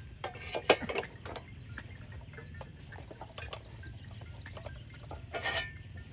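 Scattered clinks and knocks of hard objects being handled, like dishes or utensils, over a steady low hum.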